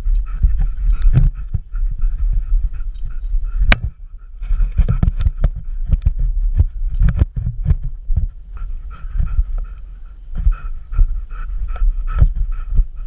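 Irregular heavy thumping and rubbing from a GoPro strapped to a black Labrador retriever as the dog moves about with a chew toy in its mouth, mixed with sharp clicks and the dog's breathing.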